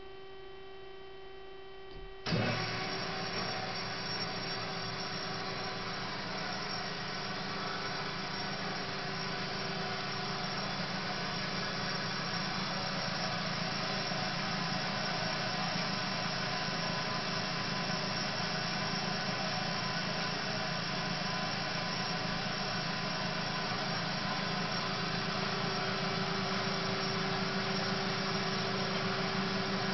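Marvel Spartan PA13/2 automatic horizontal bandsaw starting up: a steady electric hum, then about two seconds in the machine's motors come on suddenly and run steadily with an even mechanical noise and low hum, growing slightly louder.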